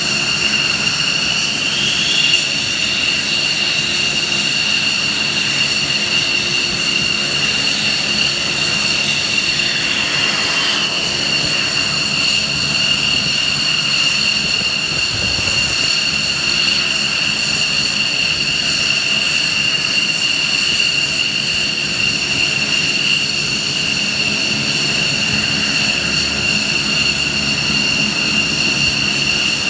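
Turbine aircraft engines running at idle: a loud, steady high-pitched whine, with a brief rise in pitch about two seconds in and a fall around ten seconds.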